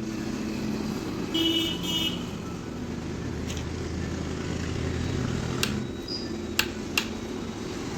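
Steady low rumble of passing road traffic that swells in the middle and eases about six seconds in, with a brief horn-like tone about a second and a half in and three sharp clicks near the end.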